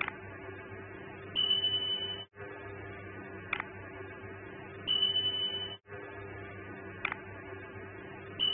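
Looping subscribe-button animation sound effect: a mouse click, then a high electronic ding about a second and a half later, repeated three times about every three and a half seconds over a low steady hum.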